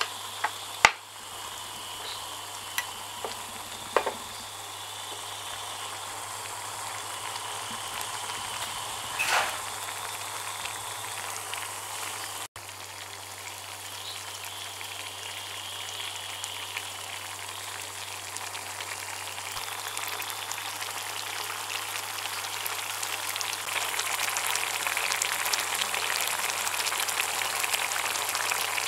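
Thick stew sauce bubbling and sizzling in a wok as it simmers and reduces. There are a few sharp knocks in the first ten seconds, and the bubbling grows louder and denser over the last few seconds.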